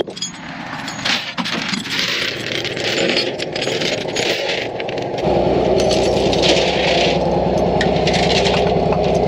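Steel tow chains clinking and rattling, handled and dragged over a flatbed tow truck's diamond-plate steel deck, with scattered sharp clanks. About five seconds in, a steady low engine hum starts underneath.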